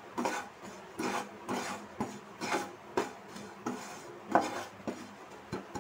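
Spatula scraping and stirring dry-roasted ground coriander around a non-stick kadhai, in short rasping strokes about two a second.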